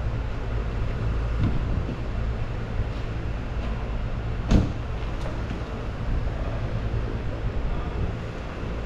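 2011 Mercedes-Benz E300's 3.0-litre petrol V6 idling steadily, with a car door shutting in one sharp thump about halfway through and a lighter click just after.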